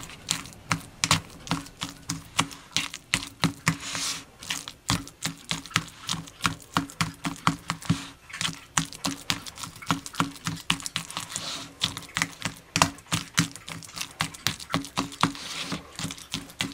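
A metal fork mashing avocados in a plastic tub: irregular clicks and taps of the fork against the tub's bottom and sides, about three a second, with soft squishing of the avocado.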